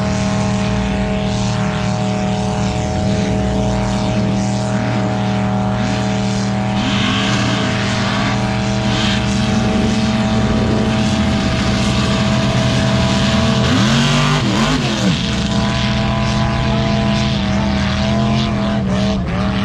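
Off-road vehicle engine running loud at steady high revs, with a brief rise and fall in pitch about fourteen seconds in.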